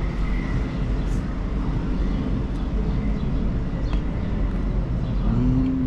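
Steady low background rumble, with a brief low hum near the end.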